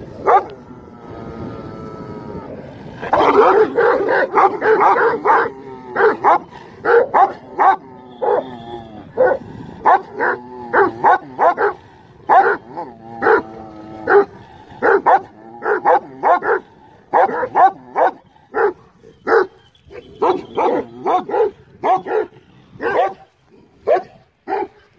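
Kangal-type Anatolian shepherd dogs barking at each other in a long run of short, loud barks, about two a second, after a drawn-out whine in the first couple of seconds.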